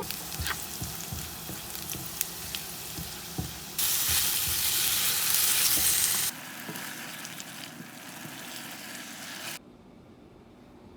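Food sizzling and frying on hot heat, an even hiss with scattered clicks of utensils. It gets louder abruptly about four seconds in, drops sharply after about six seconds, and is much fainter near the end.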